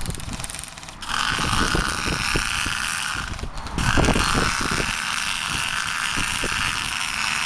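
Piper's Precision Strafer Mk4 HPA airsoft minigun firing full-auto at about 100 rounds a second, the shots blurring into one continuous buzz. The burst starts about a second in, breaks off briefly a little past three seconds, then a long second burst follows.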